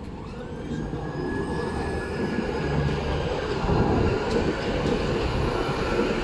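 Coupled Tatra KT4D trams rolling past close by: a low rumble of wheels on track with a thin high whine that rises near the start and then holds, growing louder as the cars go by.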